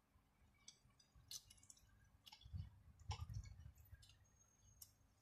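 Faint eating sounds: a metal spoon clicking and scraping against a plate, with a few soft low knocks around the middle.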